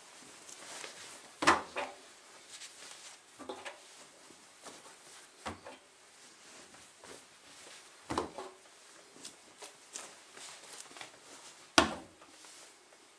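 Laundry being loaded by hand into a Samsung Ecobubble washing machine's stainless steel drum: fabric rustling, with irregular soft knocks as garments drop in and brush the drum, the loudest about a second and a half in and near the end.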